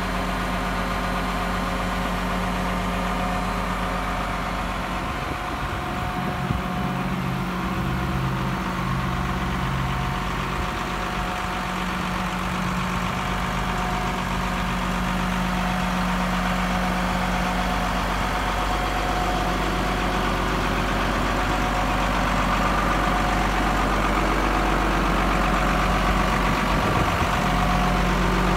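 1999 Case MX170 tractor's six-cylinder diesel engine idling steadily, getting a little louder near the end.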